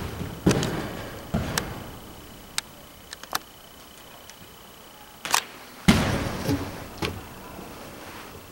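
Ice tool picks and crampon points clicking, knocking and scraping on the holds and wall panels as a dry-tooling climber moves up. About eight separate sharp strikes come at irregular intervals, with the loudest pair a little past halfway.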